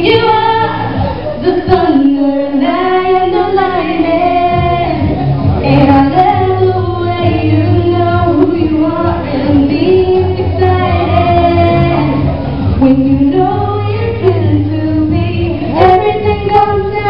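A female voice singing a pop song over backing music. A steady bass line comes in about four and a half seconds in.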